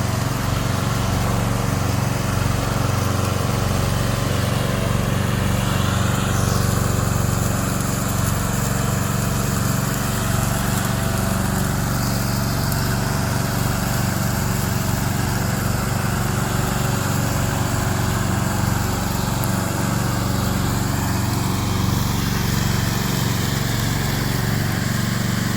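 Remote-controlled lawn mower's engine running steadily.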